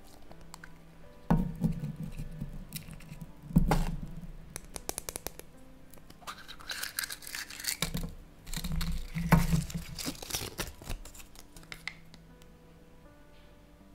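A hollow chocolate surprise egg cracked apart by hand with two sharp snaps, then a plastic toy capsule pried open and a folded paper sheet crinkled open, over quiet background music.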